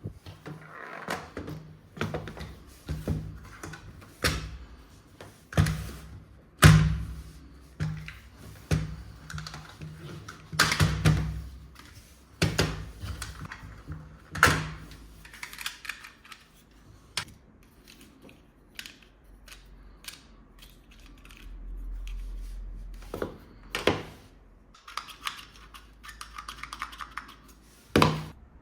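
Hard plastic toy pieces being handled and set down: a run of irregular clicks and knocks, some louder thunks among them.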